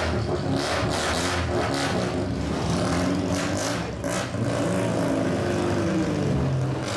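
Car engine through a loud straight-pipe exhaust, revving up and down as the car pulls away slowly. The revs drop briefly about four seconds in, then climb again.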